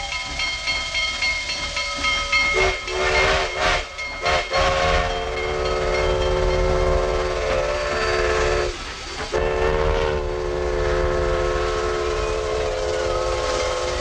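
Grand Trunk Western 4070, a 2-8-2 steam locomotive, blowing its chime steam whistle in long blasts as it passes. The whistle breaks off briefly about 9 seconds in and sounds again. Sharp exhaust chuffs and train noise come through about 3 to 5 seconds in.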